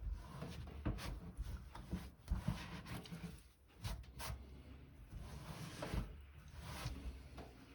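Faint knife work on a flounder on a cutting board: soft scraping and rubbing broken by scattered small knocks, the loudest about a second, two and a half seconds and four seconds in.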